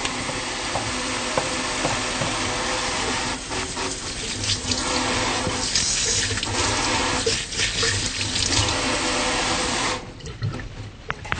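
Tap water running into a stainless steel sink as hands are washed under the stream, the splashing changing as the hands move in and out of it. The tap is shut off near the end.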